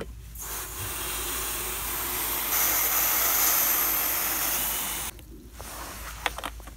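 A loud, steady hiss that gets louder about two and a half seconds in and cuts off suddenly about five seconds in.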